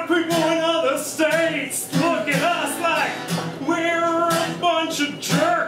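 Live singing over a strummed acoustic guitar, with long held sung notes.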